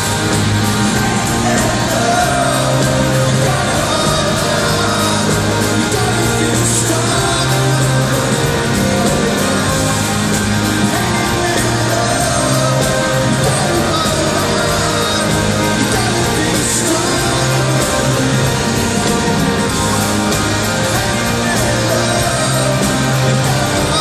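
A live rock band playing: electric guitars and drums, with a man singing over them, heard from the audience in a large hall.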